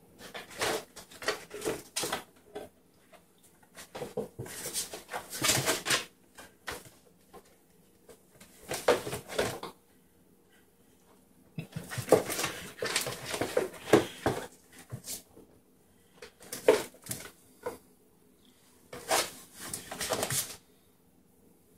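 Kittens batting, clawing and scrambling at an empty cardboard 12-pack box on a tile floor: scratchy rattling and scraping of the cardboard, with the box sliding and paws skittering, in irregular spurts of a second or two with short quiet pauses between.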